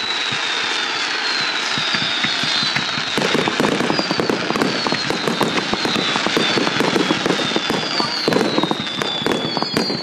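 Fireworks display: a steady rush with high whistles that fall in pitch about once a second. From about three seconds in comes a dense, rapid crackling of many small bangs.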